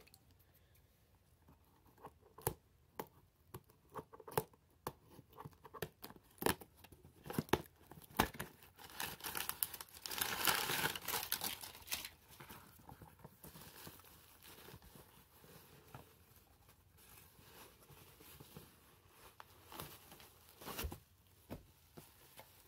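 Tape being peeled and torn off a cardboard box, with scattered crackles, then one longer, louder tear about ten seconds in. Softer crinkling of tissue paper and bubble wrap follows as the packing is pulled out.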